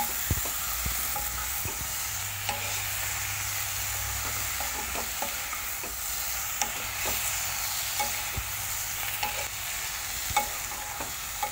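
Chicken and potato pieces sizzling as they dry-roast without oil in a non-stick wok, with a steady hiss, while a steel spoon stirs them, scraping and clicking against the pan at irregular moments.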